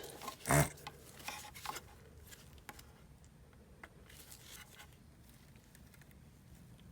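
Faint clicks and taps of a dryer control circuit board and tools being handled as a relay desoldering job begins, with one short louder sound about half a second in.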